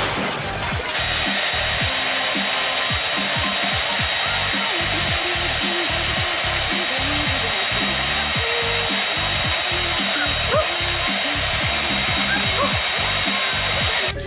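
A loud, steady rushing noise with a thin high whine, like an electric blower running, over background music with a beat; it starts about a second in and stops abruptly.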